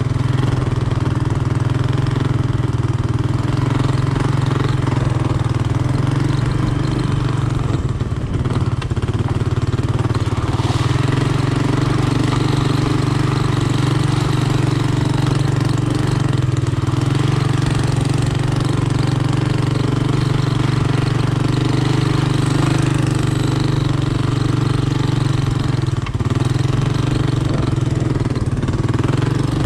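Honda ATC 200M three-wheeler's single-cylinder four-stroke engine running steadily at an even, moderate speed.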